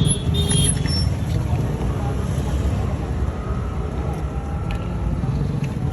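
Steady low background rumble of an outdoor street, with faint voices in it.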